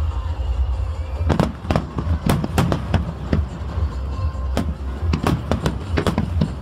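Fireworks display: a rapid string of aerial shell bursts, a dozen or so sharp bangs, thinning briefly about three and a half seconds in before resuming.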